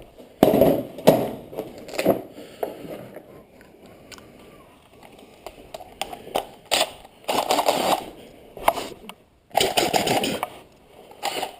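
Several short bursts of rapid, sharp clattering knocks from tools being worked on the car's parts, each about half a second to a second long, with quieter gaps between.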